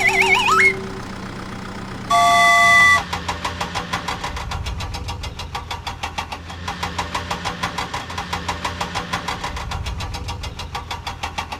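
Cartoon sound effects: a wavering whistle slides upward at the start, then a vehicle horn honks once for about a second. After the honk an engine chugs steadily at about five beats a second.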